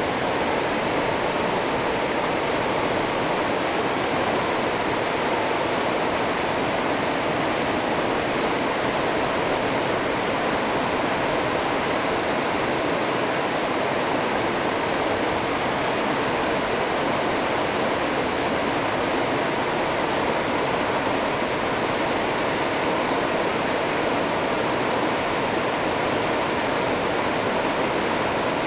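River rapids rushing over rocks, a steady, unbroken wash of water noise.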